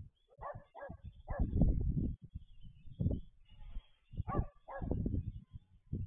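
A dog barking about six times in short, separate barks, over a low rumbling noise.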